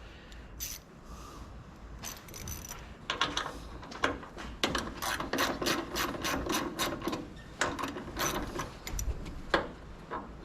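Hand ratchet wrench clicking in quick runs, about five clicks a second, as bracket bolts are backed out, with a sharper single click near the end.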